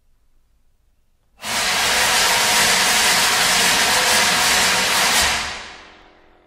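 Contemporary chamber music for voice, bassoon, accordion and percussion: a loud, steady hiss-like rushing noise starts suddenly about a second and a half in, holds for about four seconds, then fades away, leaving faint held tones near the end.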